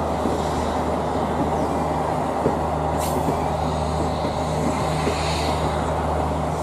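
Indian Railways WP-class steam locomotive running past with its train of coaches: a steady rumble with irregular clatter from the wheels on the track, and one sharp click about three seconds in.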